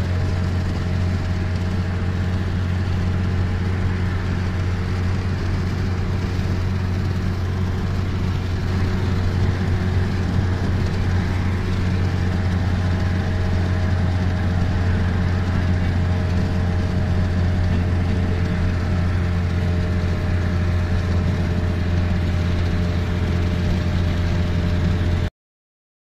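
Car cruising at a steady speed on a motorway, heard from inside the vehicle: a steady low engine and road hum under an even rush of tyre noise, cutting off abruptly near the end.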